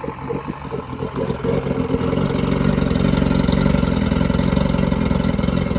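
Outboard motor running at idle, then throttled up about two seconds in and held at a steady higher speed.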